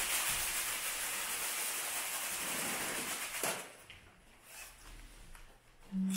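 A steady hissing noise that stops abruptly about three and a half seconds in, followed by near quiet with a few faint soft sounds.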